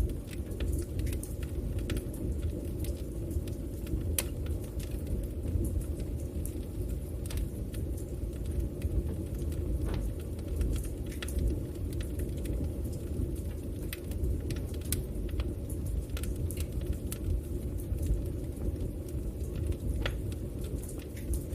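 Wood fire burning in a fireplace: a steady low rumble from the flames, with scattered sharp crackles and pops at irregular moments.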